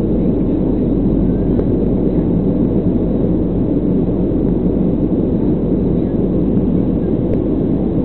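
Steady, loud rumble of a Boeing 737's engines and rushing air heard inside the passenger cabin during the climb after take-off.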